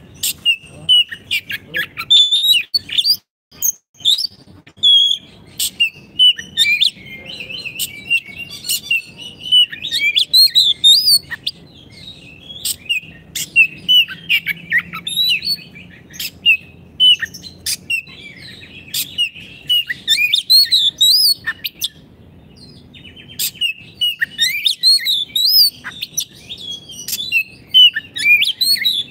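Oriental magpie-robin (kacer) singing in full voice: a fast, varied warbling song mixed with sharp clicking notes, with a short pause about three-quarters of the way through.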